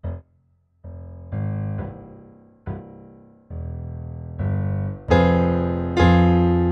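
Solo piano playing: one short chord, a brief silence, then low sustained chords that build to loud, full chords about five seconds in.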